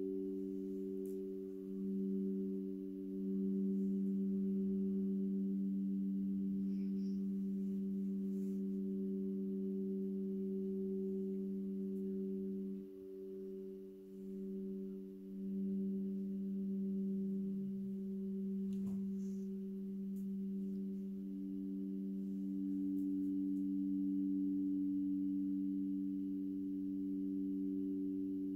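Alchemical quartz crystal singing bowls being played together, several pure tones held and overlapping. The lowest tone fades briefly about halfway through and comes back, and a middle tone grows louder later on.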